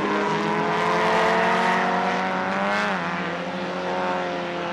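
Pre-war racing car engine running hard at high revs as the car passes, its note dropping in pitch about three seconds in and then holding steady.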